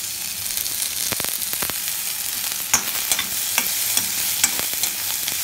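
Chopped onions, green chillies and garlic sizzling in oil in a stainless steel kadai, with a steady hiss, while a slotted steel spoon scrapes and clicks against the pan as the mix is stirred.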